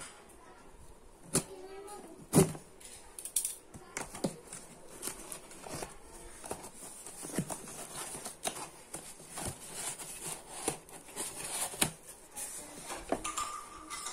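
Cardboard shipping box being handled and turned over: an uneven string of taps, scrapes and knocks of hands on the cardboard, with one louder knock about two seconds in. Near the end the box's end flap is pulled open.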